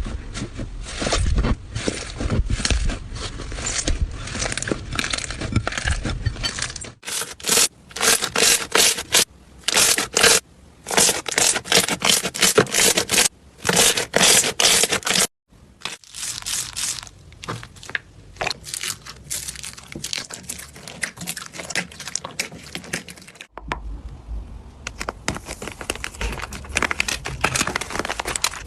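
Slime being squeezed and pressed by hand, a dense run of crackling and popping clicks. The sound breaks off and changes abruptly three times as one clip gives way to the next.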